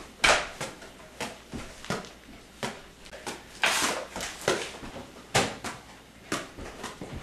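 A hacky sack being kicked back and forth on a hard floor: irregular soft thuds and shoe scuffs, a few a second, with a longer rustling hiss about four seconds in.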